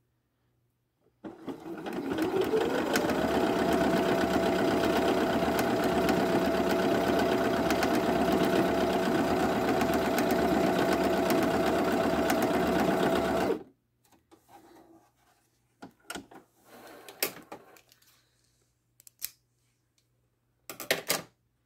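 Viking Jade 20 computerized sewing machine stitching a decorative heart stitch: about a second in the motor starts and speeds up over about two seconds to a steady whir, runs for about eleven seconds, then stops abruptly. A few light clicks and handling noises follow as the fabric is moved.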